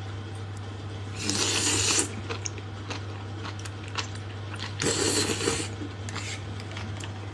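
Close-up table noises while eating from a bowl: two short rustling, scraping noises, about a second in and again about five seconds in, among light clicks of utensils against dishes, over a steady low electrical hum.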